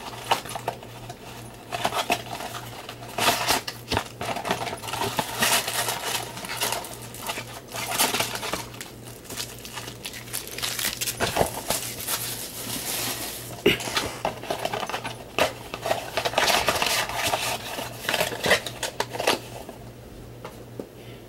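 A cardboard trading-card box being opened and unpacked by hand: repeated scraping and rustling with many small clicks and knocks as it is cut and pulled apart and its packs are taken out.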